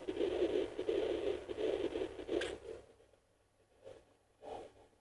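Sonoline home fetal Doppler playing through its speaker: rhythmic whooshing placental blood-flow sound with the fast, galloping heartbeat of a 9-week fetus beneath it. The sound drops away almost three seconds in as the probe slips off the signal, leaving faint scratchy noises of the probe on the gel.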